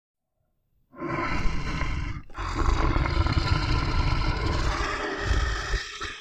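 A brown bear roaring and growling loudly, starting suddenly about a second in, breaking off briefly a little after two seconds, then going on.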